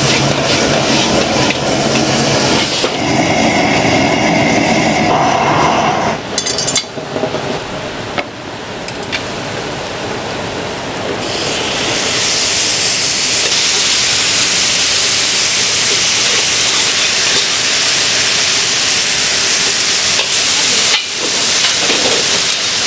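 Stir-frying in an iron wok over a gas burner, a metal ladle scraping and clattering against the pan. About halfway, the food is ladled onto a hot iron sizzle plate and a loud, steady sizzling hiss takes over.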